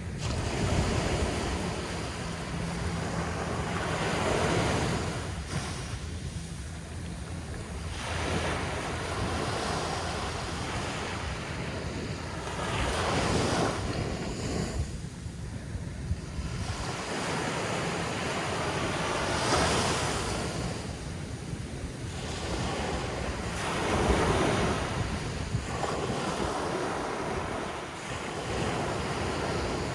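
Atlantic Ocean surf breaking on the beach, the wash swelling and falling every four to six seconds, with wind rumbling on the microphone.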